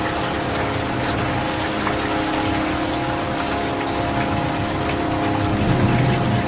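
Steady rain: a dense hiss of rainfall with individual drops ticking through it, over a steady low hum.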